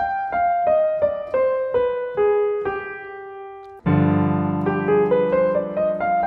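Piano sound playing the G7 flat-9 flat-13 scale (the fifth mode of C harmonic minor: G, A-flat, B, C, D, E-flat, F, G) in even single notes stepping down the scale. About four seconds in, a held chord with a low bass note comes in and the scale climbs again over it.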